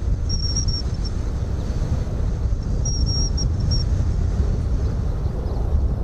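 Steady jet noise from Kawasaki T-4 twin-turbofan jet trainers flying by in formation, mostly a deep rumble, mixed with strong wind buffeting the microphone.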